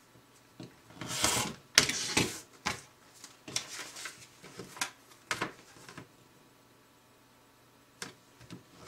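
A rotary cutter slicing through a paper foundation and fabric along a quilting ruler, and the paper-backed stack being lifted and handled: a string of short scraping and rustling noises, then a quiet pause and one light tap near the end.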